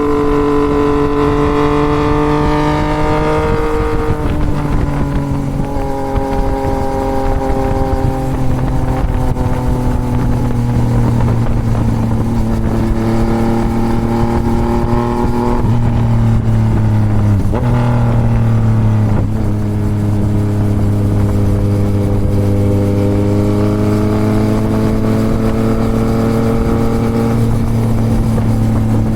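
Yamaha MT-09 inline-three motorcycle engine running through a full Toce exhaust at steady riding revs. The engine note steps down a few times in the first several seconds and dips briefly then picks back up about two-thirds of the way through.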